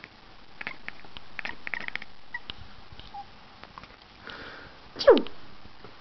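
Domestic cat giving one short meow that drops sharply in pitch about five seconds in. Soft clicks and rustling come before it.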